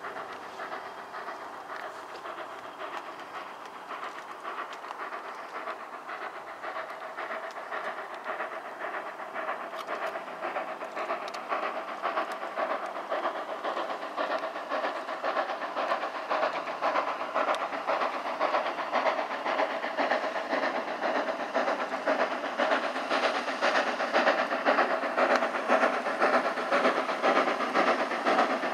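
J94 'Austerity' 0-6-0 saddle-tank steam locomotive No. 22 working a freight train up the bank, its exhaust beats in a quick, steady rhythm with steam hiss and wheel noise. It grows steadily louder as it approaches.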